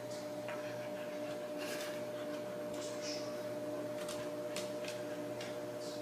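An orange kitten sneezing several times in quick succession: short, hissy bursts, heard over a steady electrical hum.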